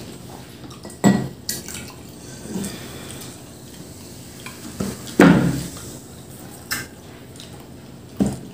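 Drinking glasses knocking on a tabletop a few times, with water poured from a plastic bottle into a glass; the loudest knock comes about five seconds in.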